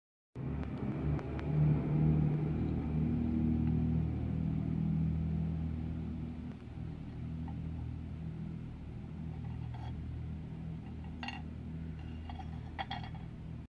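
A steady low machine hum, with a few light clicks or taps near the end.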